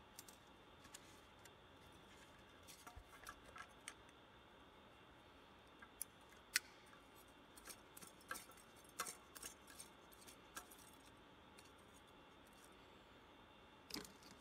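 Scattered light clicks and metallic taps of pliers working at the thin aluminium top of a drink can, with one sharper click about six and a half seconds in.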